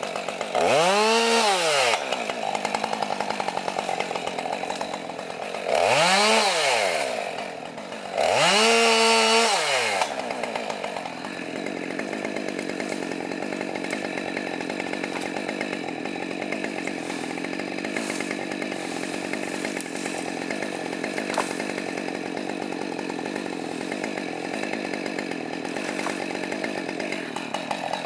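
Petrol chainsaw revving three times as it cuts into a log, the pitch rising then sagging each time as the bar is pinched in the cut: a trapped saw. From about ten seconds in it idles steadily.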